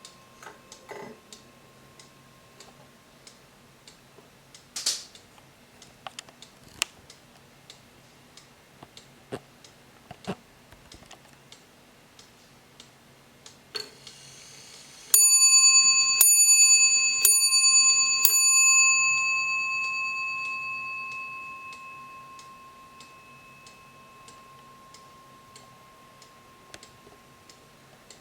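Warmink wall clock ticking steadily, then its movement whirs briefly and it strikes four times on its brass bell, about a second apart. The bell rings on and slowly fades after the last strike.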